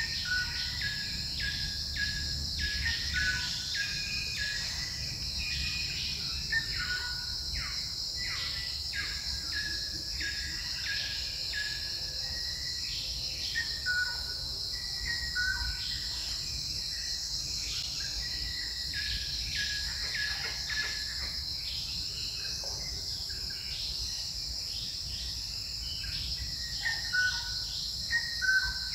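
Forest ambience: a steady, high-pitched insect drone, with many short whistled bird notes repeating over it.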